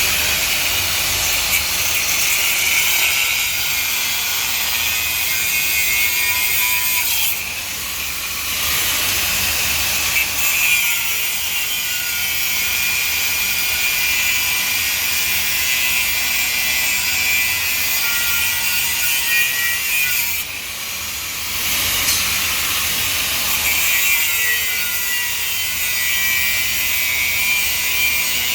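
Construction work noise: a continuous, harsh machine sound, like a power tool cutting, that eases off briefly twice.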